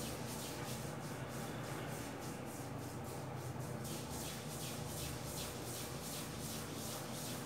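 Faint, regular swishing of wet hands rubbing face wash over a stubbled face in circular strokes, about three a second, over a steady low hum.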